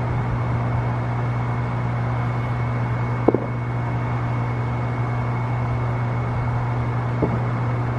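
Steady low mechanical hum with a thin steady whine above it, broken by one sharp pop a little over three seconds in and a fainter one near the end.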